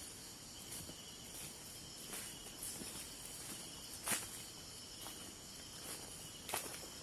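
Faint, steady insect chorus in the forest, several thin high tones held at once, with a few light snaps or crackles, the loudest about four seconds in.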